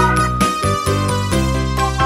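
Upbeat background music: a quick melody with a held high note over a steady bass.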